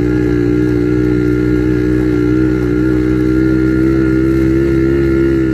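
Quad bike (ATV) engine running at a steady speed, heard from on board while riding, its pitch wavering slightly as the throttle shifts.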